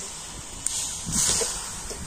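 A ladle stirring sugarcane jaggery as it melts in water in a kadai, with a swishing hiss that is loudest about a second in.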